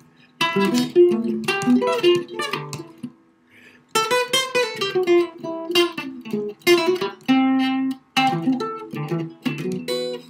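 Archtop jazz guitar played unaccompanied: a string of plucked chords and short phrases, trying out triad voicings, with a pause of about a second a third of the way through.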